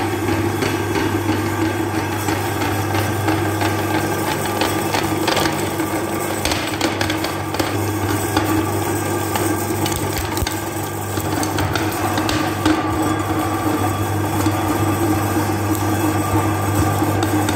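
Motor-driven meat grinder running with a steady hum while it grinds hard chocolate candies, with irregular cracking knocks as the pieces break up in the auger and cutting plate.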